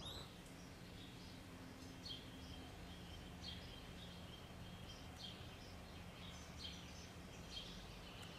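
Faint outdoor ambience: short, high, thin chirps repeating roughly once a second over a steady high tone and a faint low hum.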